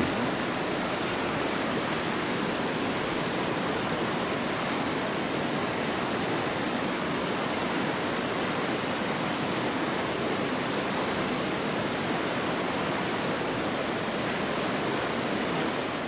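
Mountain river rushing steadily over rocks and small rapids.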